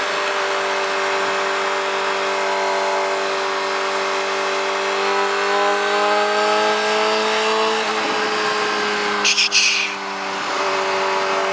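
Yamaha motorcycle engine running at road speed under a steady rush of storm wind on the microphone. The engine note climbs slowly for a few seconds and drops about eight seconds in. A short burst of hiss comes just after.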